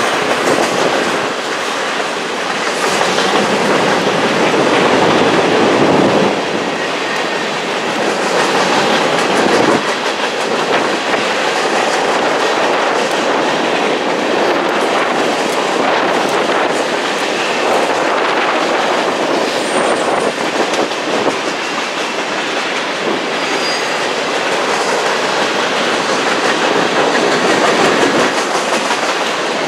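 Freight train of tank cars and covered hoppers rolling past close below, its steel wheels clattering over the rails in a steady, continuous din.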